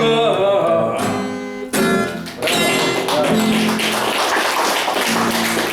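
A man sings the last word of a song over a strummed acoustic guitar. The guitar then carries on alone with fast, dense strumming to close the song.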